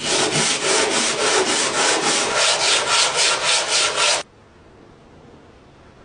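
Hand sanding by rapid back-and-forth strokes, a rough scraping with an even rhythm of about four to five strokes a second that stops abruptly about four seconds in.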